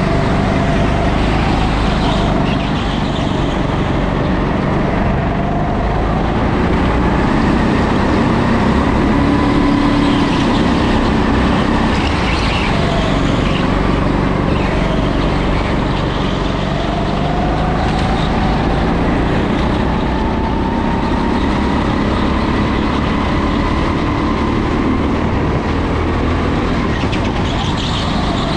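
Go-kart engine heard from onboard at racing speed, over a loud, steady rush of noise. Its pitch climbs slowly several times as the kart accelerates, then drops away.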